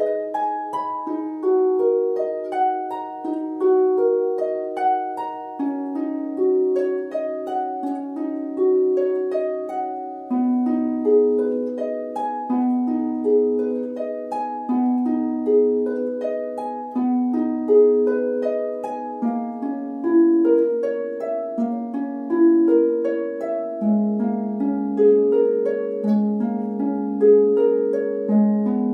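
Solo harp playing a steady stream of plucked, ringing notes, broken-chord figures over a bass line that steps slowly downward.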